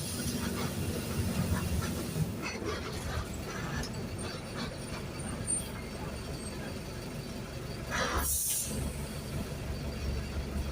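Mercedes-Benz OF-1519 BT5 bus diesel engine running, heard from inside the bus, with light rattles of the body. A short burst of air hiss comes a little past eight seconds in.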